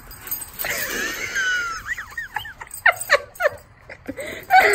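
Two dogs play-fighting, with a string of short, high-pitched whines and yips. The loudest cry comes right at the end.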